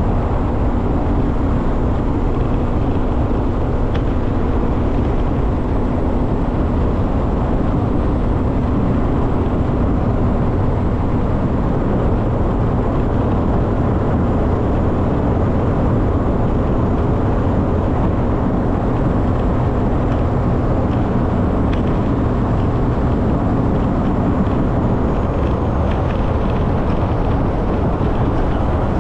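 Boat outboard motor running steadily at speed.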